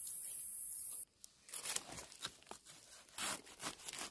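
A steady high hiss cuts off abruptly about a second in. It is followed by irregular crackling and rustling of dry leaf litter being handled and brushed aside on the forest floor around a bamboo shoot.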